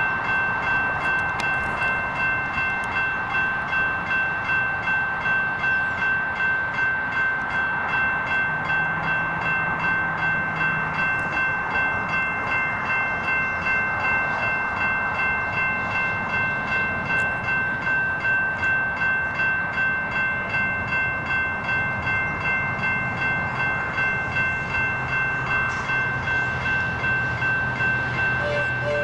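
Railway level-crossing warning bell ringing continuously in a steady, fast even beat as the crossing activates. A low drone joins in the last several seconds.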